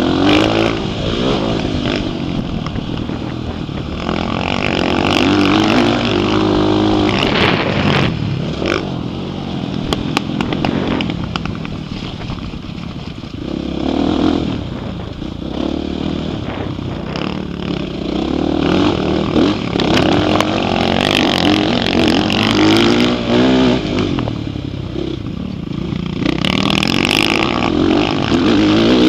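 Dirt bike engine being ridden hard on a dirt track, revving up and dropping off again and again as the rider accelerates, shifts and slows for turns, heard up close from the rider's own helmet.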